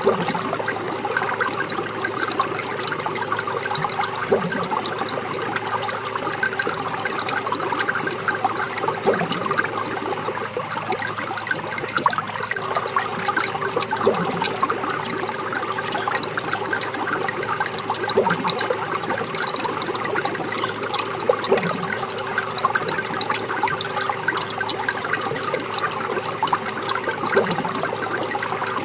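Rainwater running down a rain chain: a steady splashing trickle, with a low plop every few seconds.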